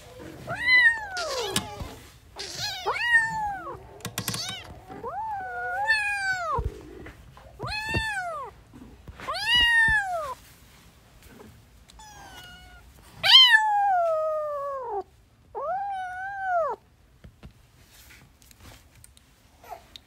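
Kittens meowing over and over, about eight drawn-out calls that each rise and fall in pitch, the longest and loudest a falling meow about two-thirds of the way through. Between the first few calls come a few soft knocks and scuffles from the kittens tussling.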